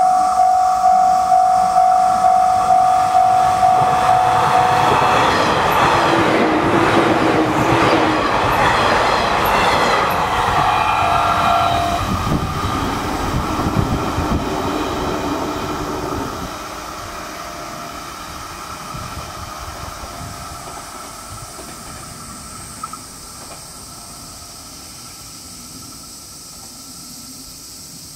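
Level-crossing warning bell ringing at about two strokes a second, then a 185 series electric express train passing the crossing with a rush of noise and wheels clattering over the rail joints. The bell stops about five seconds in, and the train noise fades away over the following ten seconds.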